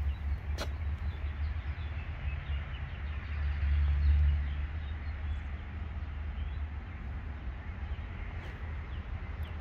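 Wind buffeting the phone's microphone as a low rumble, louder about four seconds in, with small birds chirping in the background.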